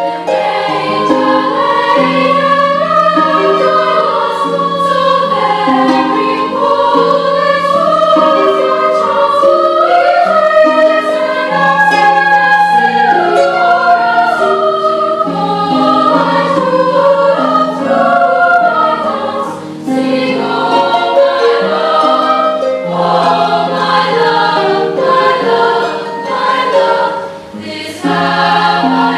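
Girls' choir singing a carol in several parts, accompanied by a concert grand pedal harp.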